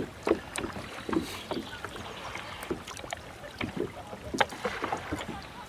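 Kayak paddle slapping and splashing on the water in short, irregular strokes, with small knocks, as a paddler practises the paddle brace, the support stroke used to keep from tipping over sideways.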